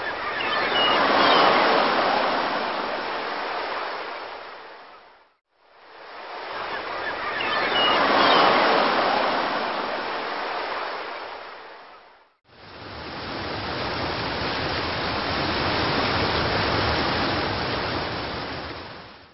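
A rushing, surf-like noise that swells and fades in three long waves, with short silent breaks between them. It cuts off suddenly at the end.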